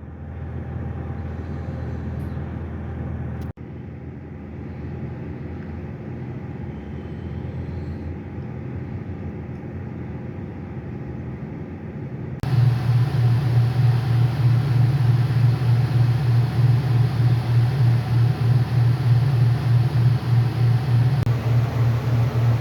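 Steady low mechanical rumble with a hum. About twelve seconds in it jumps abruptly louder, into a heavier, pulsing drone.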